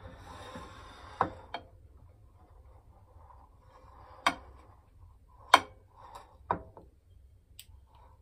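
Ceramic dinner plates knocked and set down on a kitchen countertop: about six short, sharp clacks, the loudest about five and a half seconds in, over a faint low hum.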